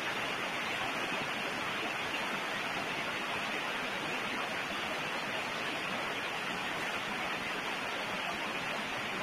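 Steady, even background hiss with no speech and no distinct events.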